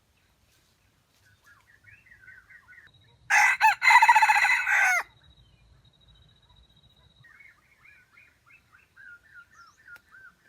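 A rooster crows once, about three seconds in, a loud crow lasting under two seconds. Small birds chirp in quick repeated notes before and after it.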